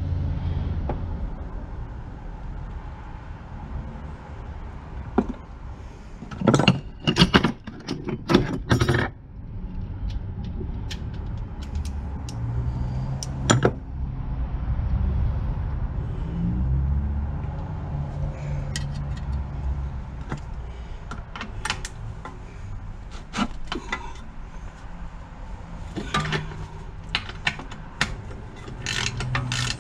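Metal hand tools and engine parts clinking and clanking as a small engine is worked on, in scattered knocks with a quick run of several strikes. A low steady hum sits underneath.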